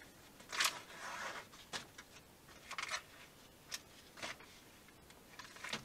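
Plastic sausage packaging being cut open with a knife and handled: about seven faint, brief rustles and scrapes, spaced irregularly.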